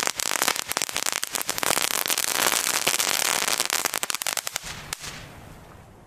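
Funke Silber Meteoriten, small Category 1 ground fireworks, several burning together on the ground and crackling densely over a hiss of sparks. The crackle thins out and fades away about five seconds in.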